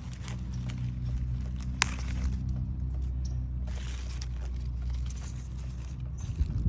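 Low steady engine hum that fades out near the end, with scattered light clicks and rustling.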